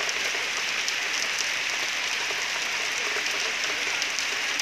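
Steady hiss of rain with scattered faint drop ticks.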